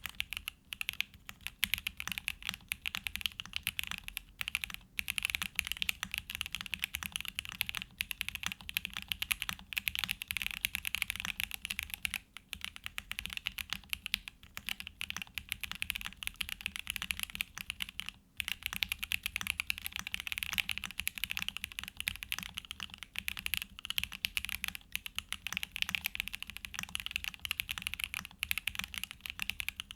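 Continuous fast typing on a Tofu65 2.0 mechanical keyboard with a polycarbonate plate, case and mid foam, hand-lubed Gateron Oil King linear switches and JTK FC Classic keycaps. The keystrokes run together in a dense clatter, with short pauses about twelve and eighteen seconds in.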